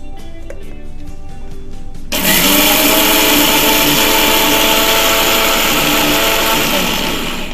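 Electric mixer grinder with a stainless-steel jar dry-grinding roasted moong dal and cardamom into a fine powder. It switches on abruptly about two seconds in, runs steadily and loudly, and dies away near the end. Background music plays before it starts.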